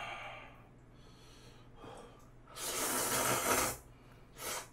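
A man slurping spicy stir-fried instant noodles off chopsticks: one long, loud slurp about three seconds in and a short one near the end.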